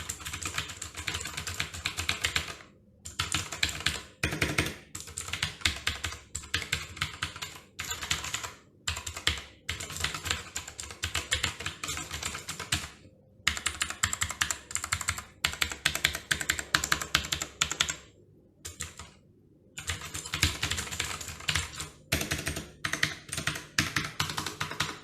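Typing on a Cosmic Byte GK16 Firefly tenkeyless mechanical keyboard with Outemu Blue switches: fast runs of sharp, clicky keystrokes, broken by brief pauses.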